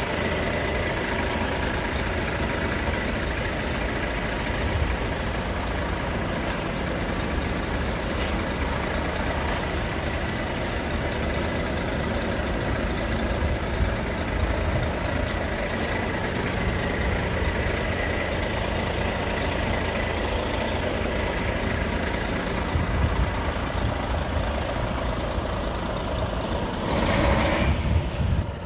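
Scania P380 truck's diesel engine idling steadily, with a brief louder burst of noise near the end.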